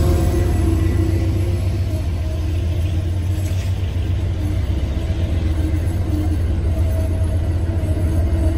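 Amtrak passenger coaches rolling past, a steady low rumble from the wheels and trucks on the rails.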